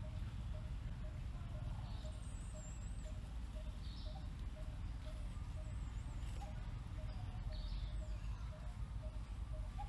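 Forest ambience: a bird repeats a single short low note about twice a second, with a few high whistled bird calls over a steady low rumble of wind.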